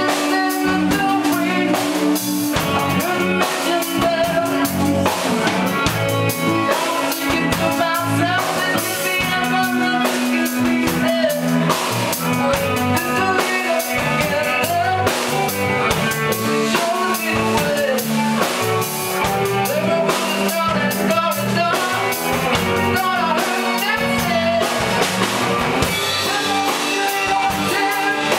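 Live band playing: drum kit, electric guitar, bass and keyboard, with a man singing into a microphone.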